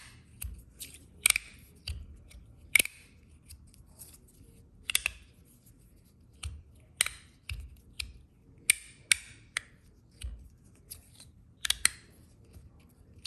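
Copper fidget slider being slid back and forth, its magnets snapping the slide into place: sharp metallic clicks at an irregular pace, about one every second or two, some in quick pairs.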